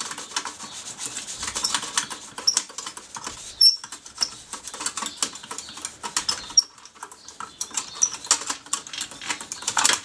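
Rapid, irregular metallic clicking and rattling of a lever-lock pick, a counterweighted turner and tensioner, worked inside a high-security lever lock as the levers are felt and the bolt is turned through its last throw.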